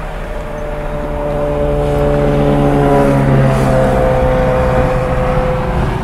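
Semi-truck air horn held for several seconds as the tractor-trailer drives past, its pitch dropping partway through as it goes by, over the low rumble of the truck's engine and tyres.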